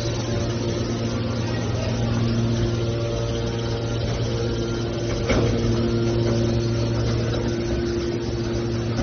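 Hydraulic metal baler running, its pump motor giving a steady hum, with one sharp knock about five seconds in.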